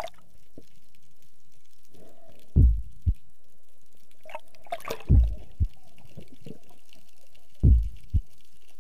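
Slow heartbeat: three pairs of low thumps, each pair about half a second apart, repeating roughly every two and a half seconds over a steady underwater hiss.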